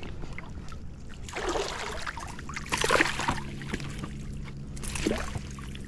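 Water splashing in three short bursts beside a kayak as a hooked smallmouth bass thrashes at the surface while it is brought to the net.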